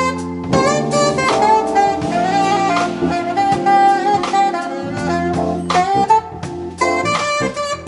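Live jazz quartet playing: a saxophone lead holding and bending long notes over electric bass, keyboards and drum kit.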